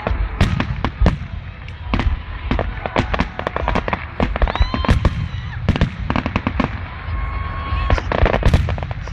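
Aerial fireworks going off in a rapid, irregular string of sharp bangs and pops, several a second.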